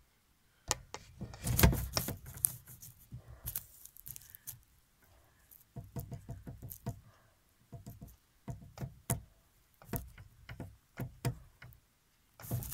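Irregular clicks, taps and rustling of handling at close range, with a loud cluster about a second and a half in and another near the end.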